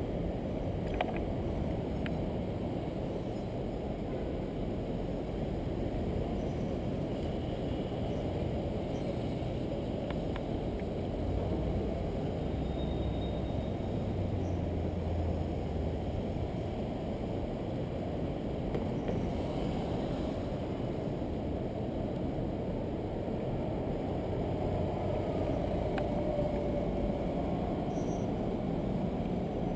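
Steady low rumble of city street traffic picked up by a camera on a moving bicycle, with wind on the microphone.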